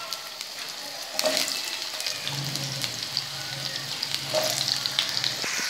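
Cubed raw potatoes sizzling and crackling in hot oil with nigella seeds, freshly added to the pan. The sizzle grows louder about a second in as more potato pieces go in.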